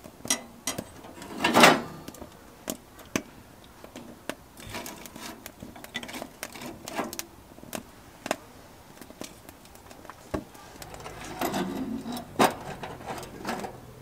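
Firewood burning in a glass-fronted wood stove, crackling with irregular sharp pops and ticks. A louder hissing pop comes about a second and a half in, and a denser run of crackles and knocks near the end.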